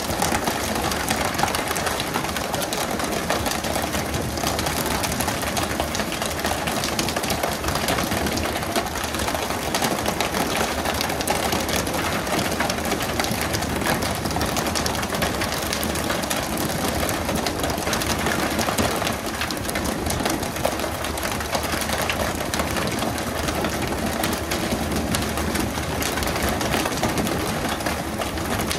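Fishing boat's engine running steadily under a dense, even hiss.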